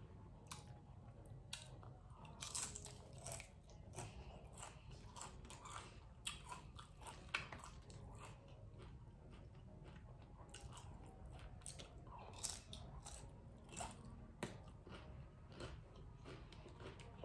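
Close-up, mouth-near chewing of loaded shrimp nachos: irregular crisp crunches of tortilla chips between softer wet chewing, faint overall.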